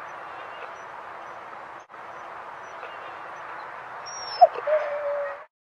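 A dog whining: a short rising yelp about four and a half seconds in, then a held, steady whine, over a constant background hiss. The sound cuts off suddenly just before the end.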